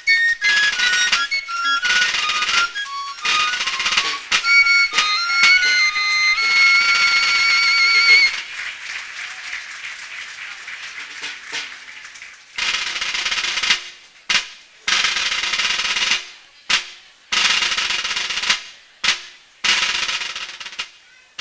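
A Basque folk dance tune on a high-pitched melody instrument ends on a long, wavering held note about eight seconds in. After it comes audience applause, fainter at first, then loud again in a series of bursts.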